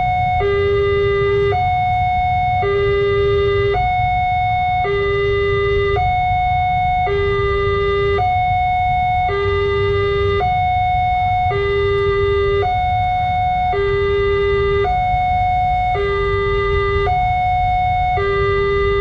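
Electronic railway level-crossing warning siren sounding a two-tone hi-lo alarm, switching between a low note and a higher note about once a second, which signals that the crossing is closing for an approaching train. A low steady rumble runs underneath.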